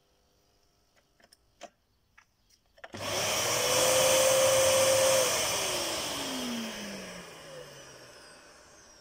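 A Kärcher SE-series spray-extraction vacuum cleaner's suction motor is switched on about three seconds in with a loud rush of air and a steady high whine. About two seconds later it is switched off, and the motor winds down with a whine that falls steadily in pitch and fades. A few faint clicks come before it starts.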